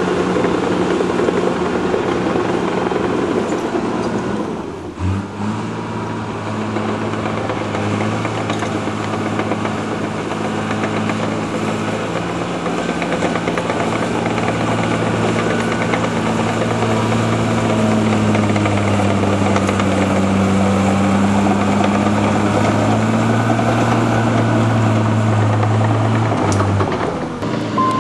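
Heavy diesel earthmoving plant running at steady revs, a low engine drone. The sound shifts abruptly to a new steady engine note about five seconds in.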